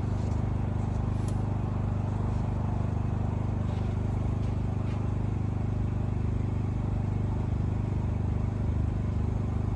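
A motor running steadily with a low, even hum, and a few faint light clicks in the first few seconds.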